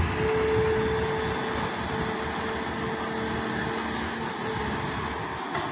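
Hyundai hydraulic excavator running as it works its bucket through mud: a steady diesel engine drone with a steady tone on top that fades about four seconds in.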